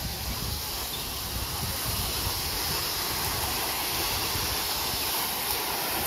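Steady wash of small waves breaking on a sandy beach, with wind buffeting the microphone in a low, uneven rumble.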